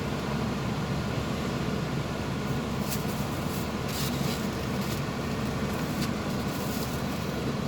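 Steady low rumble of motor-vehicle and road noise, with a few brief hissing sounds about three and four seconds in; no bus horn sounds.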